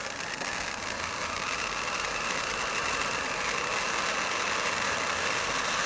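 Titanium firework fountain burning: a steady, hissing rush of spraying sparks that slowly grows louder.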